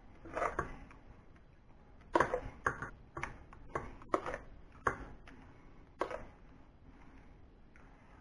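A spoon knocking and scraping against glass bowls as thick rice pudding with whipped cream is spooned into dessert bowls: a string of about eight short clinks and knocks at uneven intervals.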